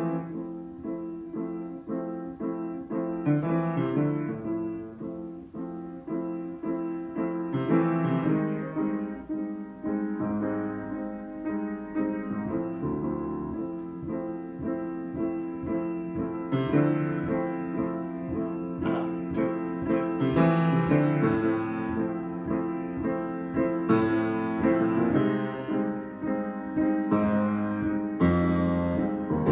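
Solo keyboard improvisation in a piano sound, slow sustained chords changing every second or two.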